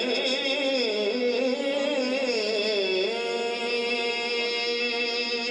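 A man singing a naat unaccompanied into a microphone, in an ornamented, wavering line. About three seconds in it settles into one long held note.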